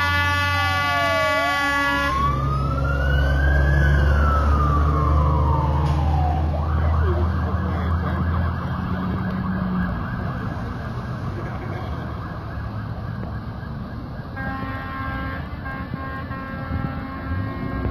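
Fire engine responding: its air horn sounds until about two seconds in, then its siren wails up and falls away once over the low rumble of the diesel engine. Road and traffic noise follow, and a steady horn tone returns near the end.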